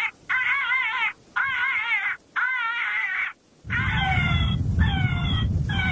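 Animal distress cries played through an electronic predator caller to draw in coyotes: a string of about six wails, each under a second with short gaps. The first wails waver up and down in pitch and the later ones fall. A low rumble joins about two-thirds of the way in.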